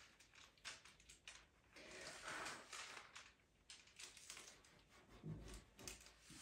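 Faint scratching and light tapping of pastel pencils working on pastel mat paper, with a soft rustle of a loose sheet of paper about two seconds in.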